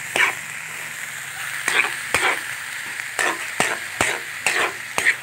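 Metal spatula stirring banana-blossom adobo in a metal wok: a steady sizzling hiss from the frying food, cut by about eight sharp scrapes and knocks of the spatula against the pan.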